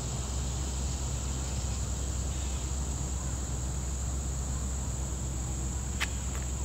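Insects buzzing steadily in one high-pitched drone, over a steady low rumble. A single sharp click about six seconds in.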